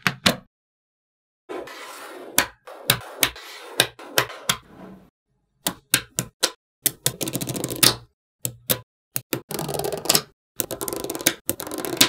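Small neodymium magnetic balls clicking and snapping together as they are pressed into rows: sharp single snaps and runs of rapid clicking, broken by short silences.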